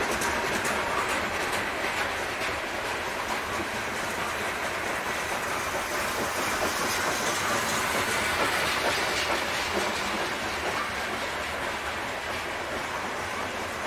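Freight train cars rolling past close by, with the steady clatter of steel wheels on the rails.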